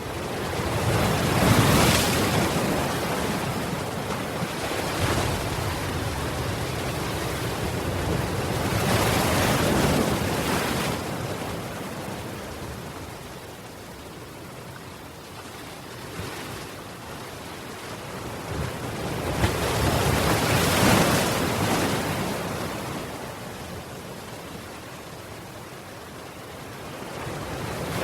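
Ocean waves breaking on the shore, in slow surges: three big swells of surf rush in, about 2, 10 and 21 seconds in, and fall back to a softer wash between them, with a fourth building near the end.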